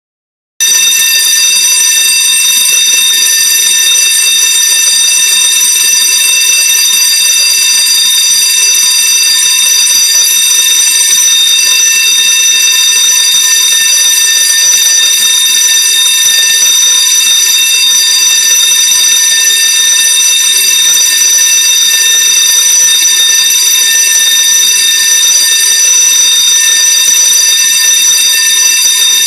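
Electric fire alarm bell ringing loudly and continuously. It starts abruptly about half a second in. It is a false alarm, set off by a malfunction.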